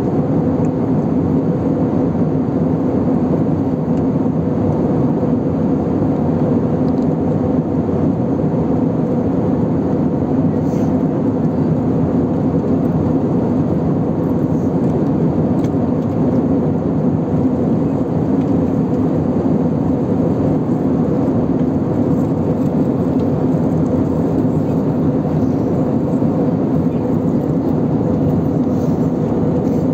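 Steady drone of an Airbus A319 passenger cabin at altitude: engine and airflow noise with a constant low hum.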